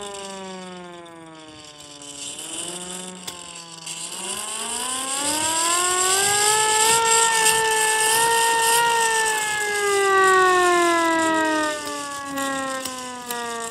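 Small hand-cranked siren giving a single-tone wail: the pitch sags, then winds up to a peak about six seconds in, holds for about three seconds, and slowly winds down, with a whirring rattle of the rotor under the tone.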